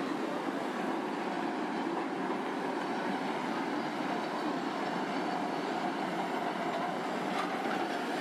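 Steady rumbling noise of a moving vehicle, even throughout, with a faint steady hum.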